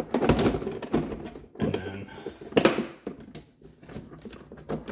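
Clear plastic Sterilite storage container being pushed up and fitted around an under-table router: a string of hollow plastic knocks and scrapes, the loudest about two and a half seconds in.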